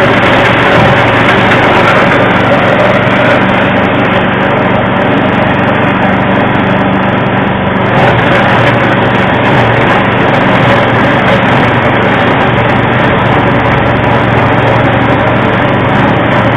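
Livestock-feed chopper machine running steadily with a loud engine-like hum and a constant mechanical rattle, with a brief slight dip about eight seconds in.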